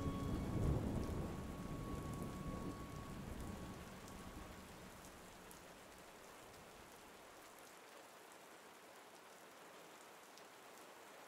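Steady rain falling, with a low rumble of thunder about a second in that dies away over the next few seconds, leaving only faint rain.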